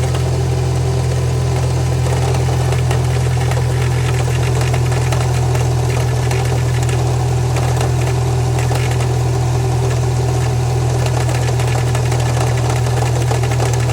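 Subaru EJ20X turbocharged 2.0-litre flat-four engine idling steadily, with a fine regular ticking in the running that the owner asks may be rod knock.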